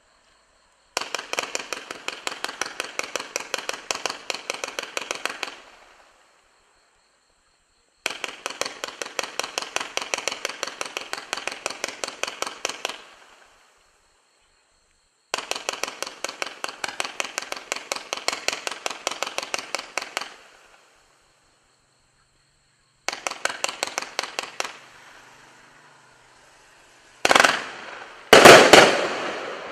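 Miracle Fireworks 'All Trumped Up' 95-shot, 500-gram consumer cake firing. Three strings of rapid-fire pops a few seconds each, with pauses between, and a shorter fourth string, then two louder bursting reports near the end, the second the loudest.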